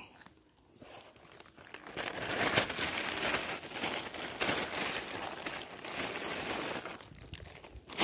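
Thin plastic bag crinkling and rustling as it is handled, starting about a second and a half in and dying away near the end.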